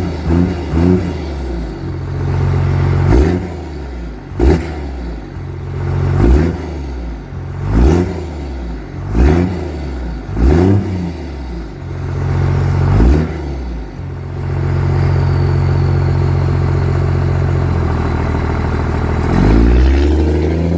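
12-valve Cummins 5.9-litre inline-six diesel being revved in a series of sharp blips, one every one to two seconds, then held at raised revs for about five seconds before dropping back near the end.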